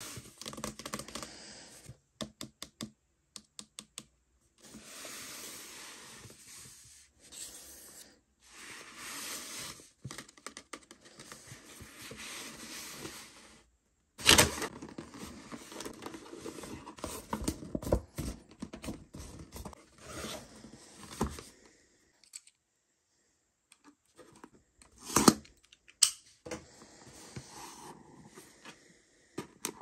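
Cardboard product boxes handled by hand: rubbing and scraping of card against card and skin in stretches of a few seconds, with small clicks and a few sharp knocks, the loudest about 14 and 25 seconds in.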